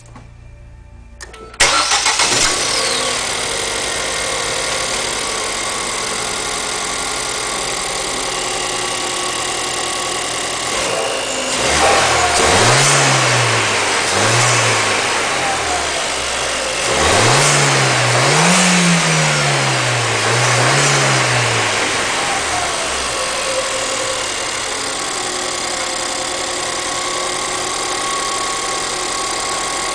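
2014 Ford Fiesta ST's 1.6-litre turbocharged four-cylinder engine starting about a second and a half in and settling to a steady idle. It is then revved in five quick blips, two and then three, before falling back to idle, with a freshly fitted Green high-performance air filter in the intake.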